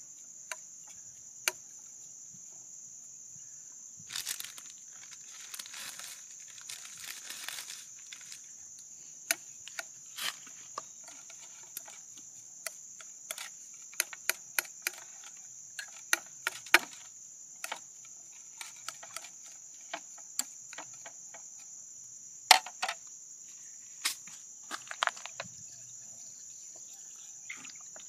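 A steady, high-pitched drone of insects, with scattered clicks and scrapes of a spoon worked in a small bowl of food. About four seconds in comes a few seconds of crinkly rustling.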